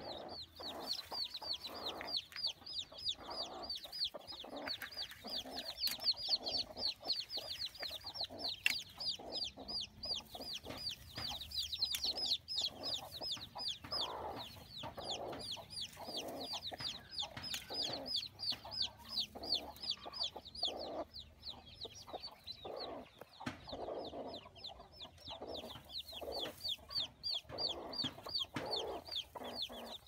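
Newly hatched chicks peeping without a break, a quick run of short falling peeps about five a second, with the mother hen's lower clucks mixed in.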